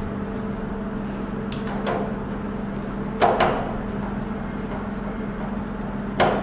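Short knocks and clicks of wire lugs and tools being handled at a screw terminal block: a faint click about two seconds in, then two louder knocks, one just after three seconds and one near the end. A steady electrical hum runs underneath.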